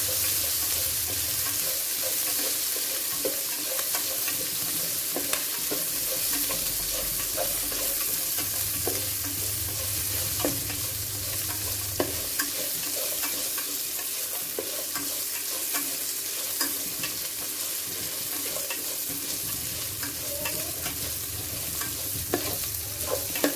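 Sliced onions sautéing and sizzling in hot oil in a stainless steel pan, with a steady hiss, while a metal spoon stirs them, scraping and clicking against the pan now and then.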